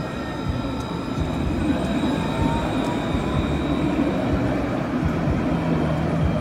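Alstom Citadis tram passing close by: a steady electric whine with several thin high tones over a low rumble of wheels on rail.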